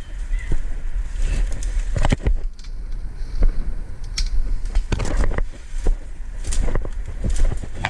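Wind buffeting the microphone as a steady low rumble, with scattered irregular knocks and rustles.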